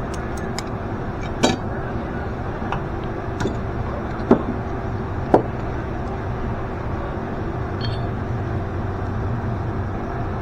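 A few light clicks and knocks of hand tools on metal fittings as lines are being loosened, over a steady hum.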